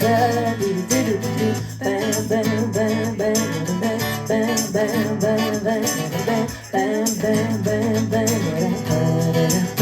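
A band playing an upbeat rock song: singing over guitar and bass, with a steady beat and shaker-like percussion.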